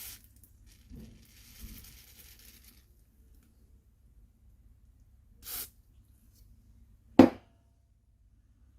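Aerosol PCB cleaner sprayed in short hisses under a phone battery to soften its adhesive: a faint soft hiss for about two seconds, a brief sharper hiss about five seconds in. A single sharp knock about seven seconds in is the loudest sound.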